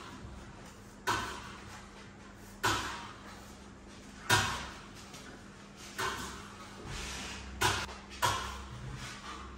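Steel plastering trowels scraping over a decorative wall panel in repeated strokes, about six in all, roughly one every second and a half; each begins sharply and fades over about half a second.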